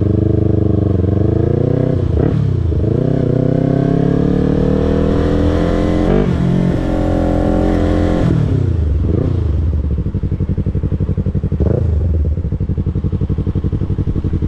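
Yamaha YZF-R3's parallel-twin engine pulling up through the revs. The pitch dips at an upshift about two seconds in, then climbs steadily for several seconds. About eight seconds in the throttle is rolled off and the engine winds down, running at low revs as the bike slows.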